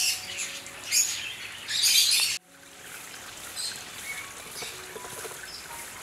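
Aviary birds chirping and calling in loud high-pitched bursts for the first couple of seconds, cutting off abruptly, then only faint scattered chirps.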